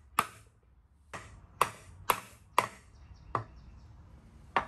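A hammer tapping on the aluminium case of a T56 six-speed manual transmission to break the case loose now that its bolts are out: a series of sharp metallic taps, about two a second, with a longer gap before the last one.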